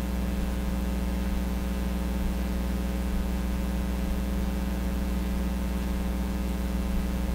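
Steady low electrical hum with an even hiss over it: room tone.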